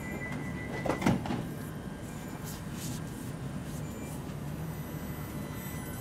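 Sliding passenger doors of a London Overground Class 378 electric train closing with one loud thud about a second in, over the stationary train's steady low hum.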